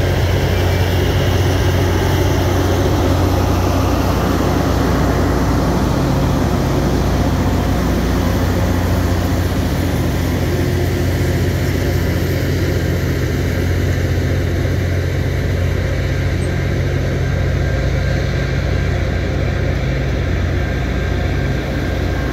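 LORAM rail grinder train rolling past close by: the steel wheels of its tank cars and passenger car running on the rails make a loud, steady rumble over a low drone.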